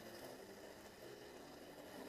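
Faint, steady whir of an N-gauge model train running along its track, barely above room tone.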